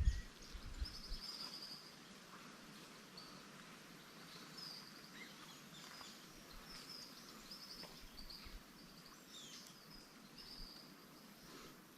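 Faint bird chirps and short trills repeating on and off over quiet outdoor background noise, with a low rumble in the first second.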